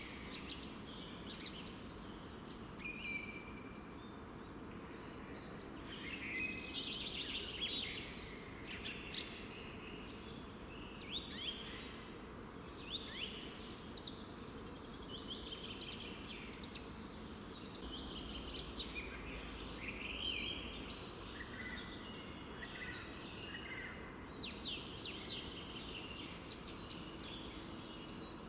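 Several small songbirds singing and chirping together in the morning: many quick high notes and sweeping calls overlapping throughout, over a steady faint background hum.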